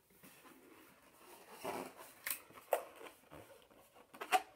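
Handling noises: a few short, sharp snaps and clicks, the loudest near the end.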